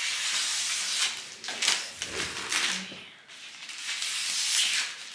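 Sheet of pink florist's cellophane crinkling and rustling as it is pulled from the roll and handled for cutting with scissors, in rushes with a short lull about three seconds in.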